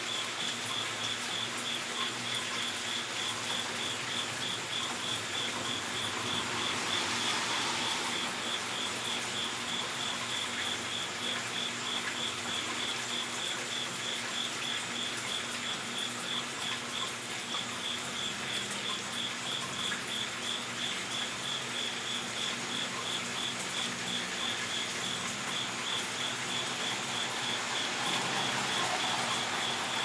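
An insect chirping steadily, a high even chirp repeated a couple of times a second, over a constant outdoor hiss. A broader swell of noise rises briefly about seven seconds in and again near the end.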